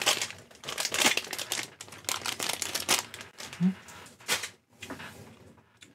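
Crinkly plastic sweet bag of Fini jelly sweets rustling and crackling as it is handled and opened, in quick irregular crackles that thin out near the end.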